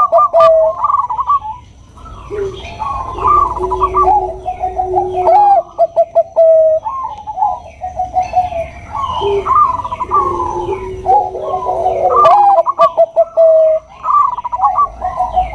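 Bangkok-type zebra doves (perkutut) cooing: repeated phrases of quick trilled coos, each ending in a held note, with a lower held note sounding alongside in some phrases. Faint higher chirps can be heard behind them.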